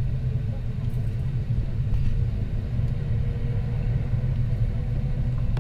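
Cabin noise in an Airbus A380-861 over the wing while taxiing: a steady low rumble from its Engine Alliance GP7200 turbofans at low taxi power and the rolling airframe, with a faint steady whine above it.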